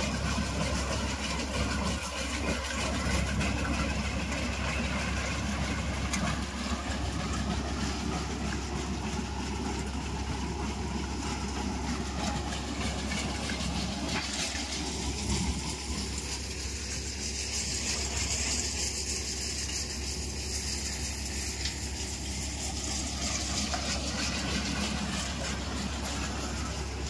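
Groundnut threshing machine running steadily under load as peanut plants are fed through it: a continuous engine-and-machinery drone with a constant low hum.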